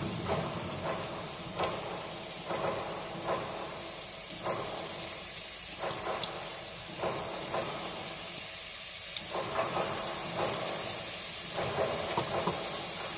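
Firecrackers going off outside in a rumbling, crackling din, with irregular clusters of pops every second or two. Under it, a faint hiss of ginger-garlic paste starting to sizzle in warm oil.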